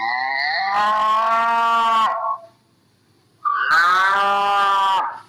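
Cow mooing: two long calls of about two seconds each, with a pause of about a second between them.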